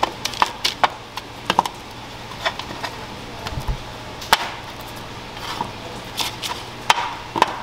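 Parchment paper crinkling and irregular light taps as raw cookie dough balls are picked up and set down on a lined baking sheet.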